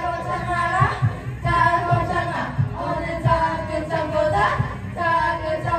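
Karaoke singing into a microphone over a backing track with a beat, the voice holding long sung notes.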